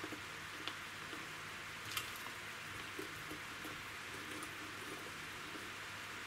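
Faint rustling and crackling as damp sphagnum moss is pressed down by hand into a thin plastic orchid pot, with a few small clicks, the sharpest about two seconds in.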